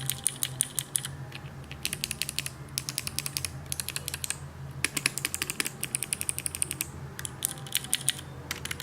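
Clicky mechanical keyboard switches, Kailh BOX clicky and Cherry MX Green, typed in quick bursts of crisp clicks with short pauses between runs, for comparing the pitch of their click.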